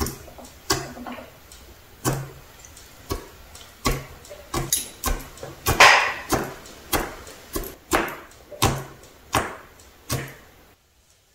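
Fingertips poking and pressing into a homemade sugar, water and flour slime with no glue or borax, giving a series of short sticky pops and clicks, about one or two a second. They stop shortly before the end.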